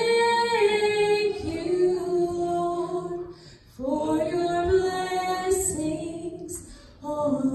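A woman singing a slow gospel song solo and unaccompanied through a microphone, in long held notes: three phrases with short breaths between them, about three and a half and seven seconds in.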